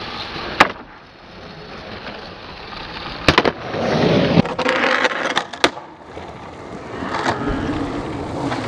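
Skateboard wheels rolling on concrete, the rumble swelling and fading, broken by sharp clacks of the board's tail and trucks striking the concrete: one early, a pair about three seconds in, and a quick cluster a little after five seconds.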